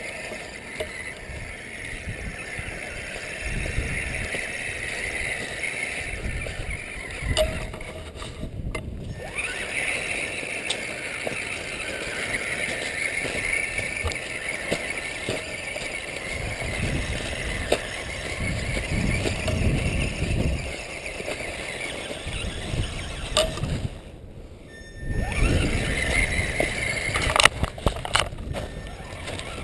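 Axial Wraith RC rock crawler's 27-turn brushed electric motor and geared drivetrain whining steadily as it crawls, breaking off twice for a moment.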